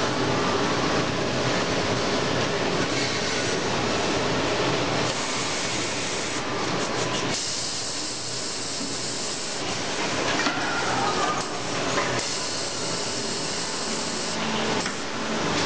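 Automatic saw-blade welding machine running, a steady noisy whir that eases for a couple of seconds about halfway through.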